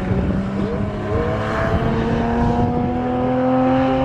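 Race car engine accelerating under load, its pitch rising slowly and steadily as it pulls through a gear.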